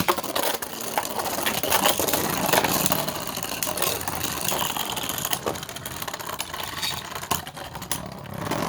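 Beyblade spinning tops, a 3D-printed Apollo against Shatter, battling in a plastic stadium: a sharp launch click, then a constant whirring scrape of the tips on the floor with rapid clattering clashes as the tops collide.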